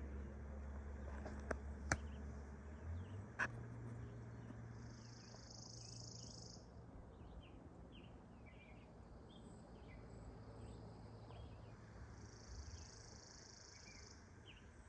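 Faint outdoor ambience: a high-pitched insect buzz comes twice, each time for a second or two, over scattered short chirps and a low steady hum. There are a few sharp clicks in the first few seconds.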